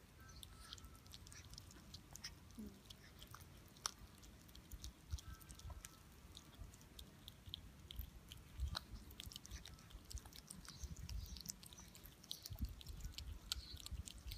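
Two seven-week-old kittens chewing and gnawing a raw chicken neck, with many small irregular clicks of teeth on the meat.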